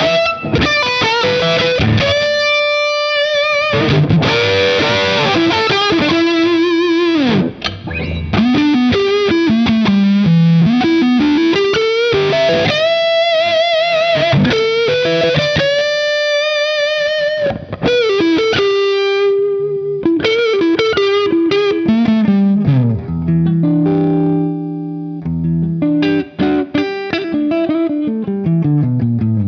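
Electric guitar with Sheptone '59 humbuckers played through an Earthquaker Devices Acapulco Gold distortion pedal into a Vox AC30 clean channel with the amp slightly pushed: a distorted lead line of held notes with wide vibrato and bends, then lower chords played in a chugging figure near the end.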